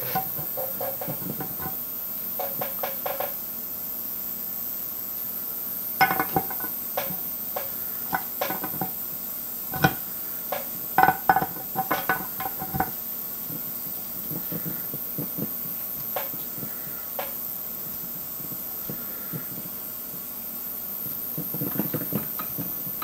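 Light metal clicks and clinks of Saab B234 oil pump gears being handled and rocked in the timing-cover pump housing while they are checked for play, most of them in a cluster in the middle. Under them runs the steady buzz of an ultrasonic cleaner.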